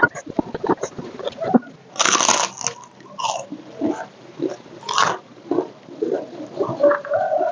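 Crispy food bitten and chewed close to the microphone, with loud crunches about two seconds in and again around five seconds, and smaller crackling chews between.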